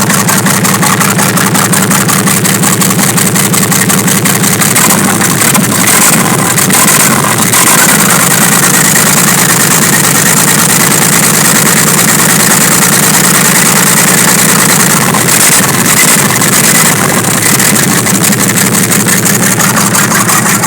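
Chevrolet D60's Perkins diesel engine running steadily, with an even, rapid beat. Its note shifts briefly twice. It runs well just after being started from a long spell without use.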